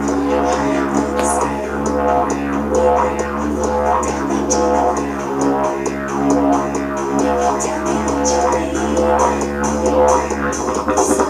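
Didgeridoo played with a continuous low drone whose overtones keep shifting, driven by a quick, even rhythmic pulse.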